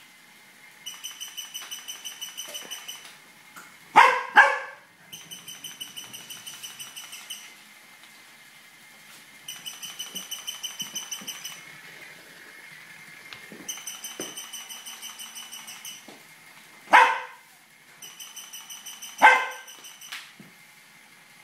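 Tibetan terrier barking four times: two quick barks about four seconds in, then single barks near the end. Between the barks, a toy rat gives short repeated runs of rapid high-pitched pulsing, about ten pulses a second, as it moves across the wooden floor.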